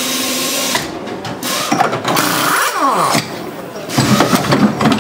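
Pneumatic wheel guns at work during a pit-stop wheel change. A burst of compressed-air hiss comes first, then a wheel gun's whine falls in pitch around the middle, and near the end comes loud, fast rattling impact hammering as the wheel nuts are run.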